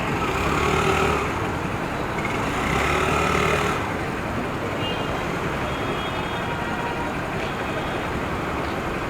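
City traffic heard from a moving motorcycle: steady engine, road and wind noise, with other vehicles passing and briefly louder about a second in and again around three seconds in.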